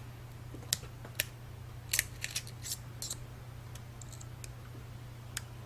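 Small sharp clicks and scrapes, about a dozen at irregular intervals, of a tiny flat-head screwdriver prying the ribbon-cable connectors off an iPhone's logic board. A steady low hum runs beneath.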